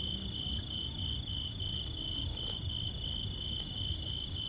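Insects chirping in a steady high-pitched pulsing trill, about two to three pulses a second, over a low rumble.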